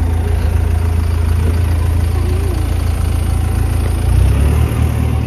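A vehicle engine idling close by with a steady low hum that shifts about four seconds in.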